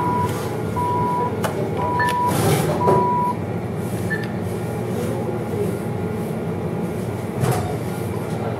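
ATM beeping: a steady electronic tone about half a second long repeating roughly once a second, the machine's prompt to take what it has dispensed, stopping about three seconds in. A short higher beep follows about four seconds in as a screen button is pressed, over a steady background hum.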